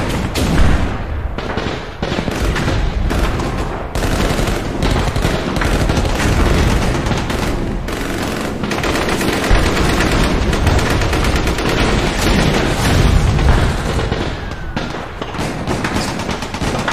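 Battle sound effect of dense, continuous gunfire, with rapid machine-gun fire and scattered shots throughout.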